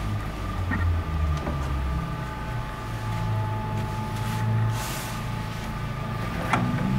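A steady low machine hum, with a short hiss about five seconds in and a sharp knock near the end.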